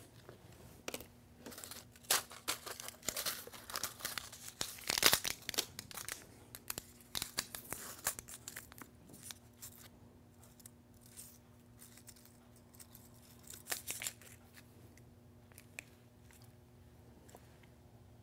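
Crinkling and tearing of acupuncture needle packaging as it is opened by hand, in a run of irregular crackles, densest and loudest around five seconds in and thinning out to a few small ticks after about fourteen seconds.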